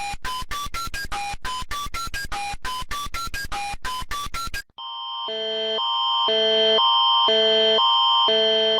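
Electronic emergency-alert tones. First comes a rapid run of short beeps at changing pitches, about five a second, which stops a little past halfway. Then a pulsing alarm tone swells in and holds, alternating about twice a second over a steady high whine.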